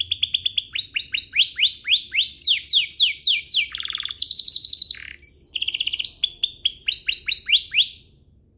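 Domestic canary singing: fast trills and runs of quick downward-sweeping notes, about three or four a second, with a short break about five seconds in. The song stops abruptly near the end.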